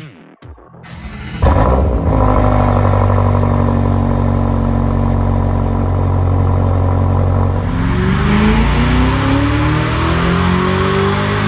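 BMW M5 F90's twin-turbo V8 through a Remus aftermarket exhaust. It comes in suddenly about a second and a half in and holds a steady note, then from about eight seconds the revs climb steadily with a faint rising whine as the car accelerates.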